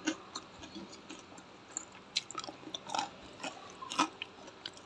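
Someone chewing a piece of crispy fried pork coated in salted egg yolk, giving a string of short, irregular crunches: the sign that the coating is crisp.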